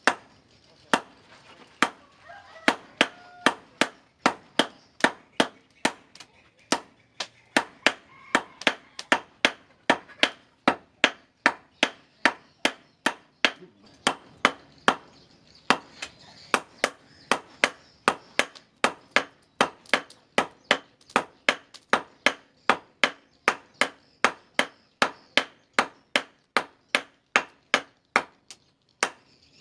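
Hand hammer blows on steel on an anvil, forging a knife blade, in a steady rhythm of about two to three strikes a second, each with a short metallic ring.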